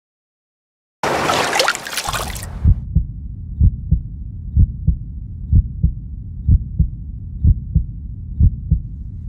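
Heartbeat sound effect: low double thumps, lub-dub, about one beat a second over a low rumble. A short burst of rushing noise comes just before the heartbeat starts.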